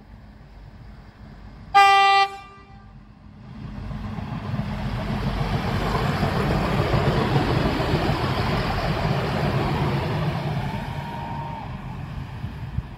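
A diesel railcar gives one short horn blast, about half a second long, about two seconds in, then passes close by: the engine and wheels on the rails build up, stay loud for several seconds and fade as it moves away.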